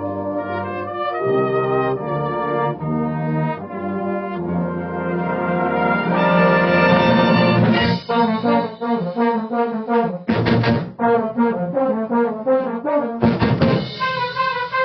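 A brass band playing: held chords swell to a loud peak about six seconds in, then give way to short, rhythmic, detached notes, with sharp percussion strokes about ten and thirteen seconds in.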